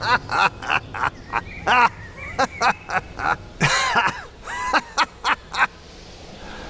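A man laughing hard in a quick run of short 'ha-ha' pulses, which stop a little after five seconds in.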